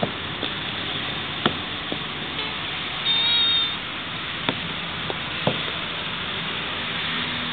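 A male Cyrenaican Greek tortoise, mounted on a female, gives one high-pitched squeaking mating call lasting under a second about three seconds in. Scattered sharp clicks and knocks from the tortoises' shells and claws come through a steady hiss.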